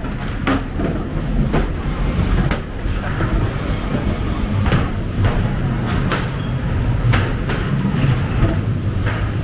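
Ghost train ride car running along its track with a steady low rumble, and a sharp clack roughly every second.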